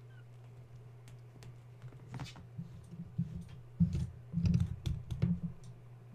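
Kittens playing: light scattered clicks and taps of paws and toys, then a run of loud dull thumps and knocks for about two seconds past the middle, over a steady low hum.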